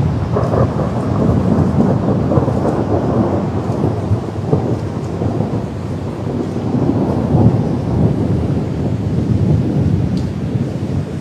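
Long rolling thunder rumbling over steady rain, swelling and easing, loudest a couple of seconds in and again past the middle.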